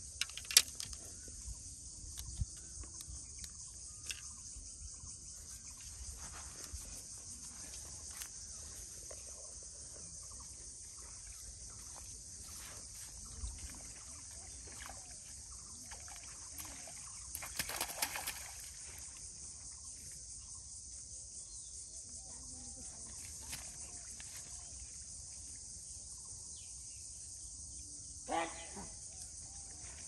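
Outdoor ambience of wading and working in shallow muddy water: scattered soft knocks and squelches from bare feet in mud and from bamboo rods being handled, and a short splash about 18 seconds in, over a steady high hiss.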